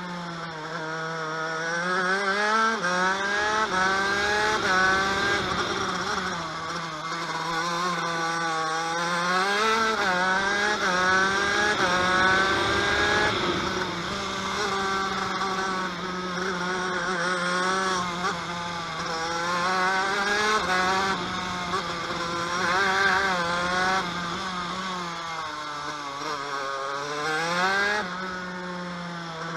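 TM KV92 125cc two-stroke shifter kart engine at racing speed: the revs climb in a series of steps as it shifts up through the gears, then fall away under braking, over and over.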